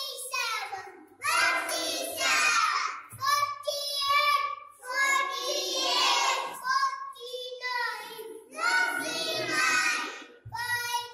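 A young boy's voice chanting numbers aloud in a sing-song recitation, in short phrases of about a second with brief pauses between them.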